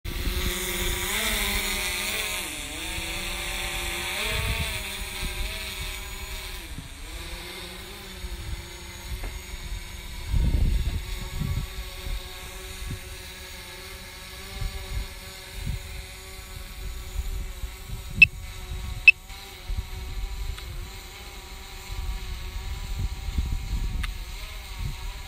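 DJI Mavic Pro quadcopter drone's propellers buzzing with a steady multi-tone whine whose pitch rises and dips as the drone manoeuvres, along with gusts of wind rumbling on the microphone. Two short sharp clicks come late on.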